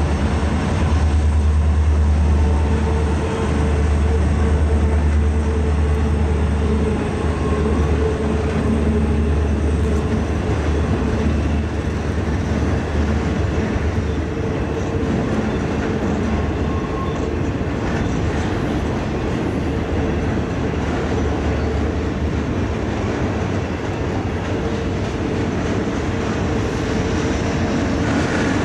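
A loaded garbage unit train's container cars roll across a steel truss railway bridge with a steady rumble and wheel clatter. A deep low drone under the rumble is strongest for the first several seconds, then eases.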